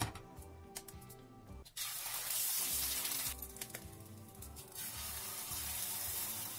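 Eggs sizzling in hot oil in a frying pan. The sizzle starts suddenly about two seconds in, is loudest at first, then settles to a steadier frying hiss over background music.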